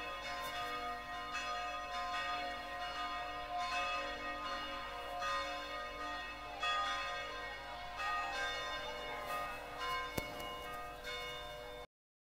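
Church bells ringing, with a new stroke about every second and a half over overlapping ringing tones, and a single sharp click about ten seconds in. The ringing cuts off suddenly near the end.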